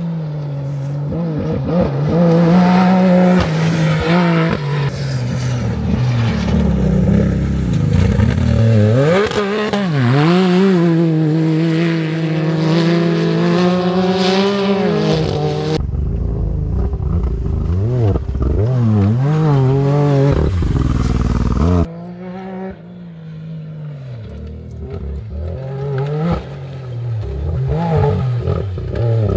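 Off-road race vehicle engines revving hard under load, their pitch climbing and dropping again and again. The sound changes abruptly twice, about 16 and 22 seconds in.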